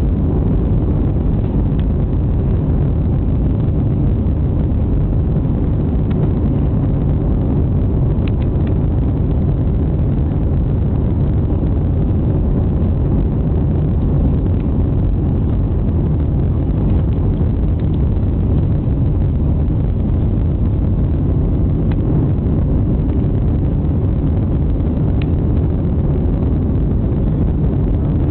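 Cabin noise of a Boeing 737-800 climbing out just after takeoff: the steady, loud low rumble of its CFM56-7B turbofan engines at climb thrust, mixed with airflow noise, heard from inside the cabin.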